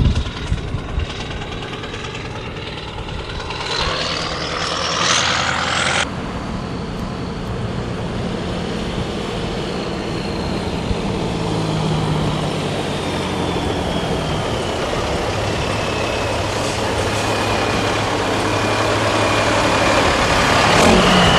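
American long-nose diesel semi-truck approaching and driving past, its engine running with a high whine sliding slowly down in pitch, loudest as it passes near the end. Early on a rising whine cuts off suddenly about six seconds in.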